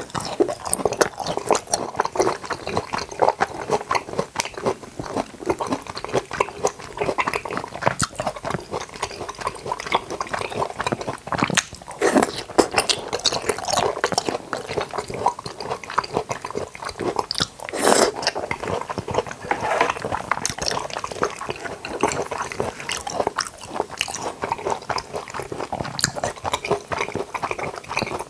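Close-miked chewing of soft jackfruit and toddy palm fruit: a continuous run of wet mouth clicks and smacks with no break.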